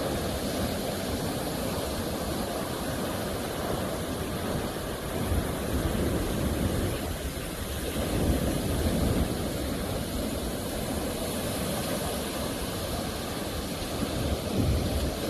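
Sea waves breaking and washing on the shore: a steady rushing noise that swells into a deeper rumble about three times as waves break.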